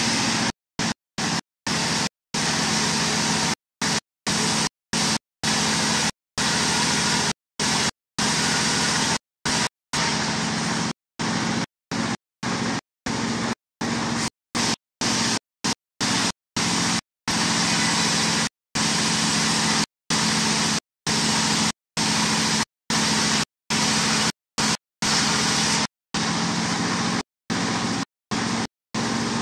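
Single-cylinder stationary diesel engine running steadily, driving a belt-driven band sawmill as a timber beam is fed through it. The sound cuts out for a moment over and over.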